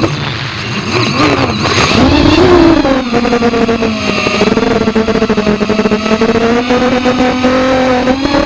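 Brushless motors and propellers of an FPV racing quadcopter whining. The pitch drops sharply as the throttle is cut at the start, wavers up and down for a few seconds, then holds a steady lower pitch in cruise and creeps up near the end.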